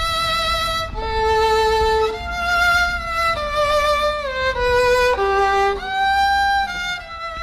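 Violin music: a slow melody of long held notes with vibrato, two notes sounding together, stepping downward and then rising again near the end.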